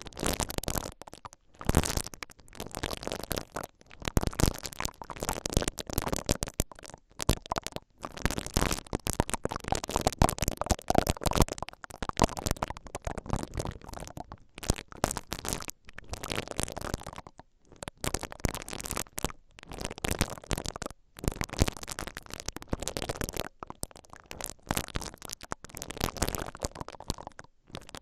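Two soft silicone bristle ear picks brushing, rubbing and poking into the grilles of a stereo X/Y recorder's two microphone capsules. The result is close, scratchy rustling in irregular strokes with brief pauses between them.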